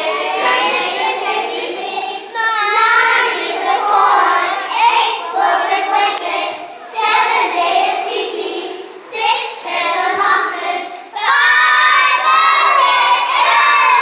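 A group of young children singing together, in phrases with short pauses between them.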